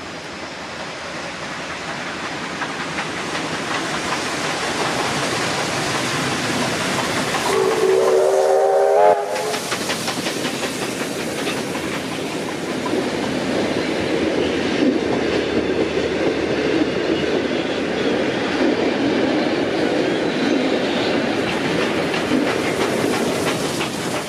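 Heritage steam-hauled passenger train passing. Its rumble builds for several seconds, then a short whistle rising in pitch sounds about eight seconds in. After that the vintage carriages clatter over the rail joints as they roll by.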